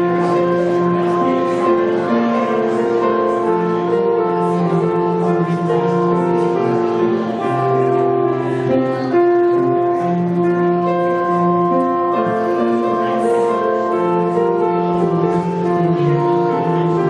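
Slow instrumental music on piano and keyboard, with long held chords changing every second or two.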